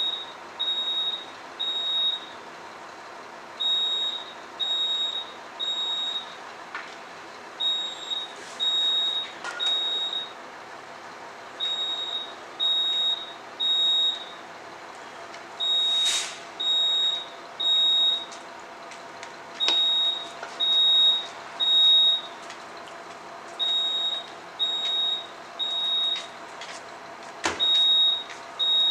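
Building fire alarm sounding the temporal-three evacuation pattern: three high, evenly spaced beeps, a pause, then again, over and over. A couple of faint knocks, a short sharp noise about halfway, and a thump near the end.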